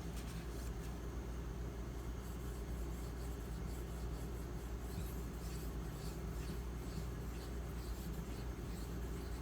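Steel knife blade stroked freehand across a 4000-grit diamond matrix stone, making faint, repeated scraping strokes over a steady low hum. The stone sounds deadened and gives very little audible feedback.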